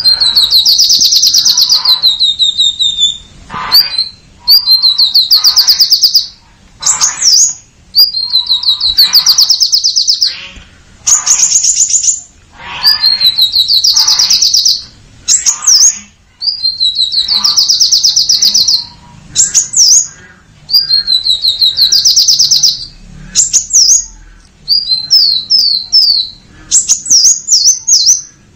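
Purple-throated sunbird singing: loud, high-pitched, rapid trills lasting two to three seconds each, repeated with short breaks and mixed with short sharp downslurred notes, which come in quick runs near the end.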